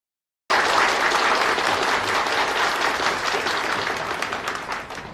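An audience applauding, with many hands clapping. It starts suddenly about half a second in and slowly dies down near the end.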